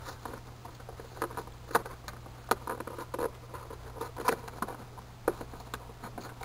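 Cardboard box flap being pried and pulled open by hand: irregular scratchy crackles and small snaps of cardboard, several a second, over a steady low hum.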